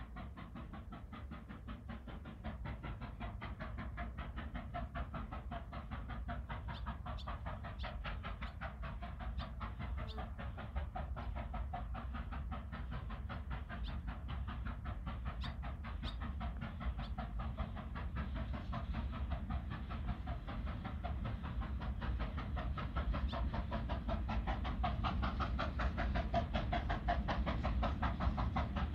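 JS-class 2-8-2 steam locomotive hauling a train of empty coal wagons, approaching with a fast, even rhythmic clatter that grows steadily louder.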